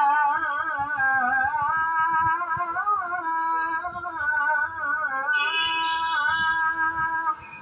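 A muezzin's solo voice chanting the Islamic call to prayer (adhan), drawing out the long, ornamented melody of the phrase 'hayya 'ala al-falah', heard through a television speaker. The held notes waver and break off just before the end.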